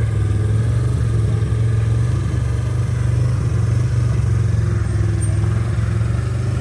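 Polaris RZR four-seat side-by-side's engine running steadily at low speed as the machine creeps along, a constant low drone that does not rise or fall.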